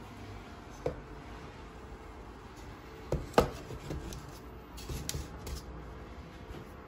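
A bamboo steamer basket being handled on the stovetop: a few light knocks and rubs of wood, the loudest a pair of knocks about three seconds in.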